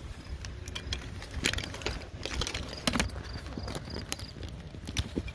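Irregular clicks and knocks from a fire extinguisher being handled as its safety pin is pulled from the handle.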